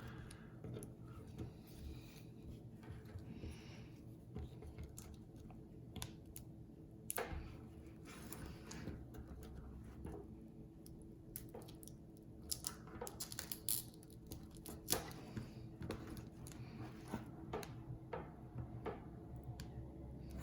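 Faint, irregular small clicks and scraping as a pry tool works an iPhone 8 battery loose from its thick, sticky adhesive, with a few sharper ticks about midway and later on.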